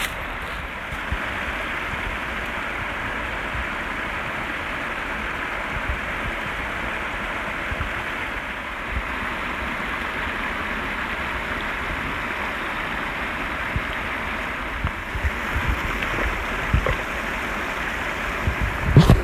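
Small creek running over rocks, a steady rushing of water. Near the end come a few low knocks and a louder thump.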